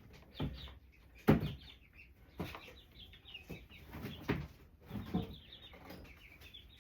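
Chickens clucking, short clucks about once a second, with faint higher chirps between them.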